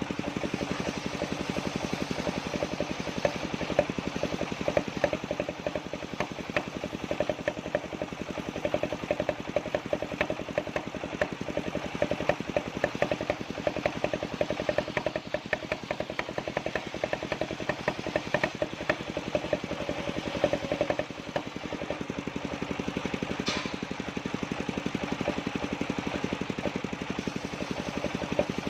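The engine of a circular-saw sawmill running steadily with a fast, even chugging beat. About three quarters of the way through there is one short, sharp high sound.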